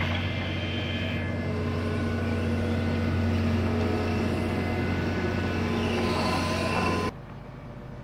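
Diesel engine of a tracked excavator running steadily with a deep, even drone. It drops away abruptly about seven seconds in.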